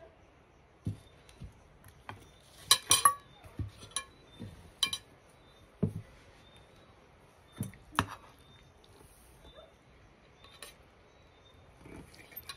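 Tableware clinking and knocking as stewed chicken is dished out with a serving spoon onto plates: a dozen or so separate clinks, the loudest cluster about three seconds in.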